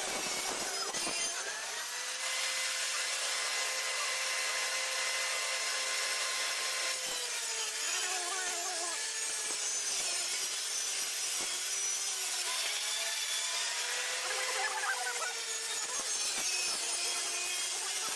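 Homemade bench saw, a circular saw blade running up through a board, ripping a plywood sheet: a steady whine over the hiss of the cut, sagging in pitch a few times as the blade takes the load.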